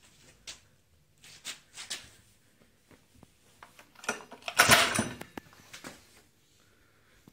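Light knocks from a Rotop PA 90 engine's casing being handled, then, about four seconds in, one pull of its recoil starter lasting about a second. The engine does not catch.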